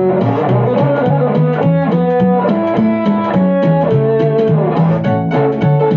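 Live instrumental break: an acoustic-electric guitar played together with an electronic keyboard, over a low bass line that steps from note to note in an even rhythm.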